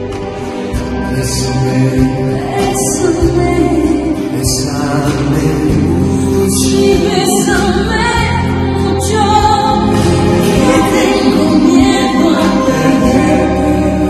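Figure skating program music: a sung vocal line over sustained low notes, swelling louder through the middle and easing off near the end.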